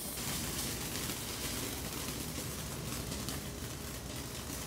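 Ground fountain firework spraying sparks: a steady hiss with a few faint crackles.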